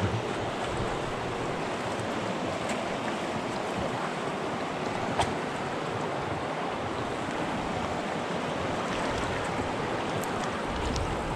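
A clear mountain stream rushing steadily over rocks at the bank, with one sharp click about five seconds in.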